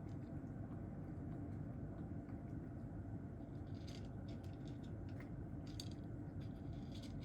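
Cat eating from its bowl: scattered faint crunching clicks of chewing over a steady low room hum.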